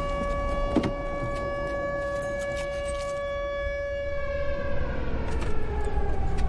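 A civil defense siren holds one steady wailing tone, then begins to wind down about four seconds in, falling in pitch. A low rumble runs underneath, and there is a sharp knock just under a second in.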